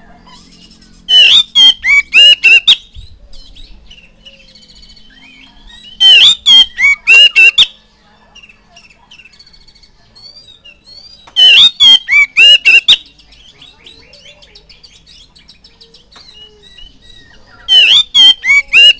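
Oriental magpie-robin singing: four loud spells of song, each a fast run of sweeping whistled notes lasting about a second and a half, coming roughly every five seconds with quieter song between.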